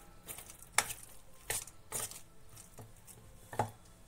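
Soya chunks being stirred into a thick spice paste in a stainless steel bowl: several sharp, irregularly spaced knocks and clicks of the spoon against the bowl.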